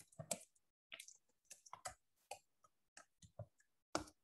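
Computer keyboard being typed on: about a dozen faint, uneven key clicks.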